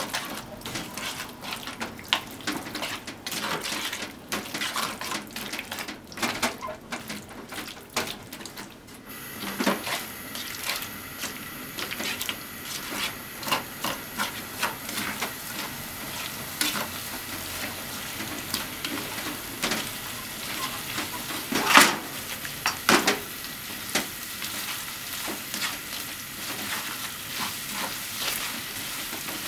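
Chicken, potatoes and onions sizzling in a frying pan while they are tossed with silicone-tipped tongs. The tongs click and scrape against the pan throughout, and a steady sizzle sets in about nine seconds in.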